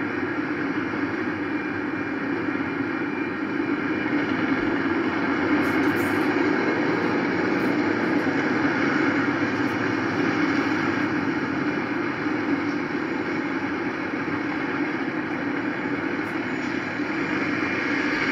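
Steady noise of a freight train of covered hopper cars rolling past a road grade crossing, with no breaks or sharp sounds.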